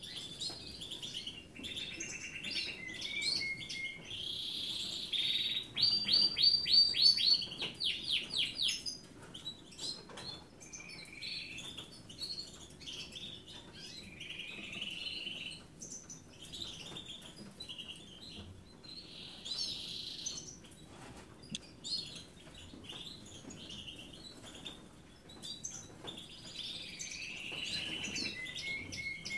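Two European goldfinch nestlings begging with high chirps while being hand-fed from a syringe, with a fast run of about ten loud chirps about six seconds in.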